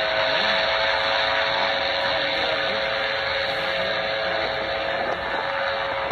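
Homemade mini airboat's engine and caged air propeller running steadily: a continuous drone with a steady hum, easing slightly quieter as the boat moves off across the water.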